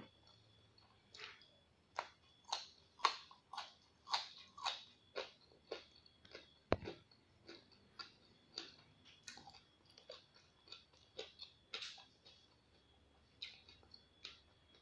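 A person chewing crunchy raw vegetables close to the microphone, a quick, uneven run of crisp crunches, one to two a second.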